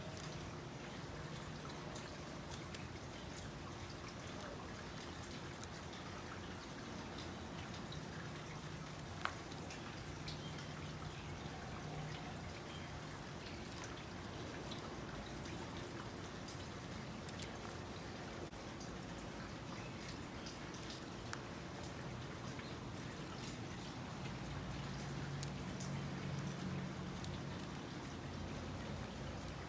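Hands weaving a basket: small, scattered clicks and crackles of the weaving material being worked, over a low steady hum. One click about nine seconds in is louder than the rest.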